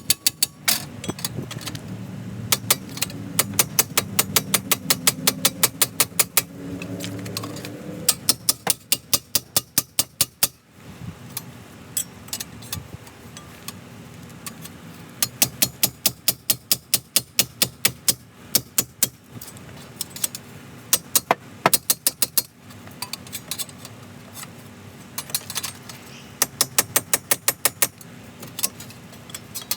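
Hammer blows on a seized front wheel bearing hub, metal on metal, coming in fast runs of about four strikes a second with short pauses between runs as the rusted-on hub is driven loose.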